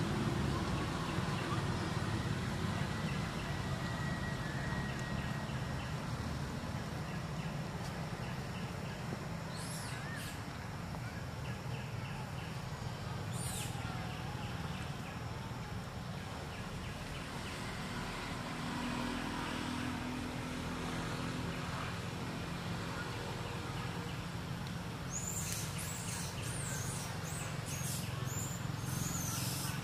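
Outdoor ambience: a steady low rumble, with a bird chirping briefly twice and then a quick run of high chirps near the end.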